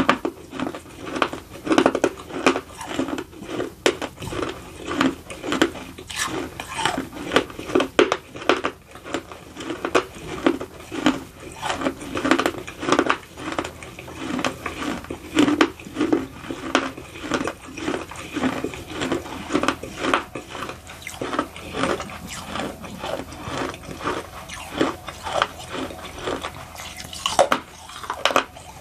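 Close-up chewing of baked edible clay: a steady run of crunching bites, about two a second.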